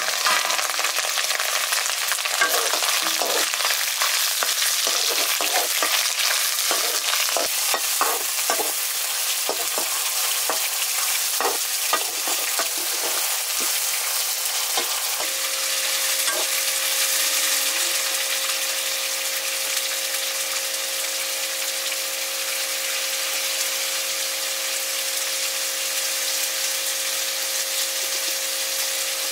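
Buff (buffalo-meat) curry sizzling as it fries in hot oil in a pan, with a spoon knocking and scraping against the pan as it is stirred, mostly in the first half.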